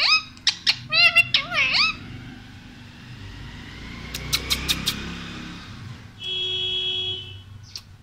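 Short, high-pitched chattering calls with quick up-and-down pitch sweeps in the first two seconds, then a passing vehicle's rumble with a quick run of sharp clicks, and a steady pitched tone lasting about a second near the end.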